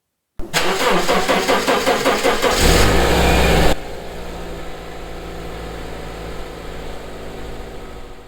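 2009 Subaru Outback engine cranking briefly, catching about two and a half seconds in and running loudly, then settling to a quieter, steady idle from nearly four seconds in. It starts readily in the cold now that its mass airflow sensor has been cleaned.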